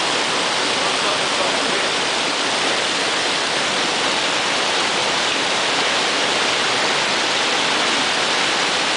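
River water rushing over rocks in a small whitewater cascade, a steady, unbroken rush.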